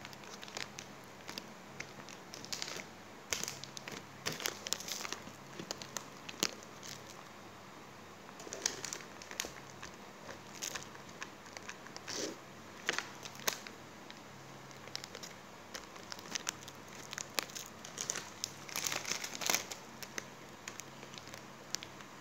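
Plastic cracker packets crinkling and rustling as hands handle them and press them into place, in irregular spells with short clicks and taps.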